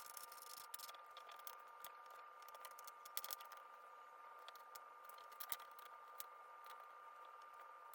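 Faint scattered clicks and light scrapes of cardboard jigsaw pieces being handled and fitted, over a faint steady hum.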